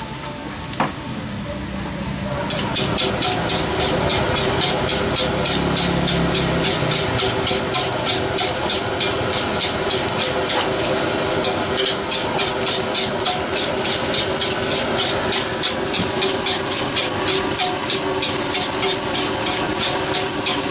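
Nasi goreng stir-frying in a steel wok: a metal spatula scrapes and tosses the rice in quick, regular strokes over a steady sizzle, which gets louder about two and a half seconds in. A single sharp clink just under a second in.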